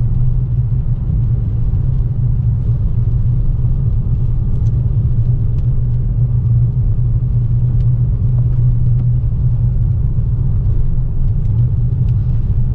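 Steady low rumble of a car driving, heard inside the cabin: engine and road noise without change.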